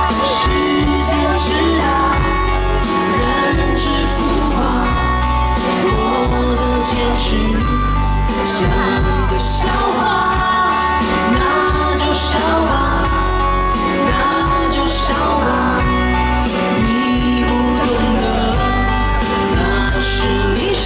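Live band music with a female lead singer, played loud through a concert PA: a steady heavy bass line and drum hits under the sung vocal.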